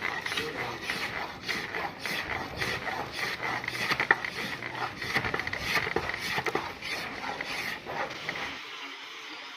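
Rapid, irregular mechanical clicking and scraping that stops near the end.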